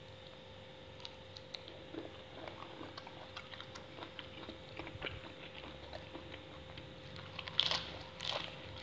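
Chewing of raw shrimp cured in fish sauce, with many small clicking mouth sounds throughout and louder bites near the end as a fresh leafy green is bitten into.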